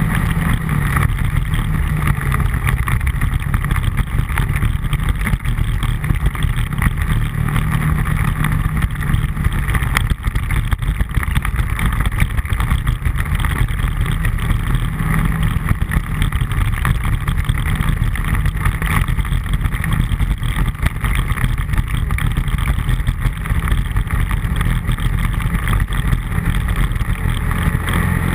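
ATV engine running steadily at a near-constant cruising pitch, mixed with a continuous rush of tyre and wind noise while riding a gravel road.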